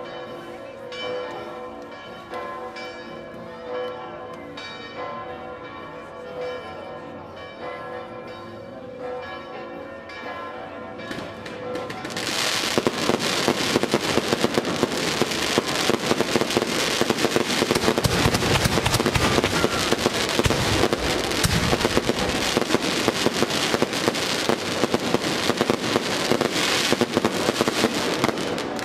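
Church bells pealing, then about twelve seconds in a dense, rapid barrage of daytime fireworks firecrackers breaks out and takes over. It crackles on continuously, with heavier bangs mixed in around the middle.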